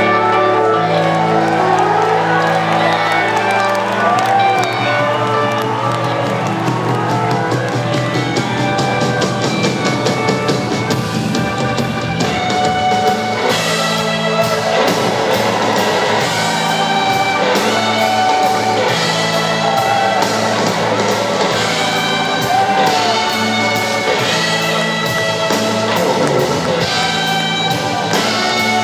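Live rock band playing an instrumental passage with keyboards, guitars and drums. It opens on held chords, and the drums build into the full band by the middle.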